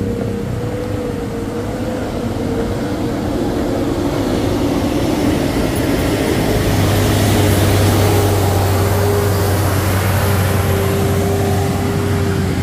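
Heavy truck engine running under load with road and tyre noise; a lower steady drone comes in about halfway through and the sound grows slightly louder.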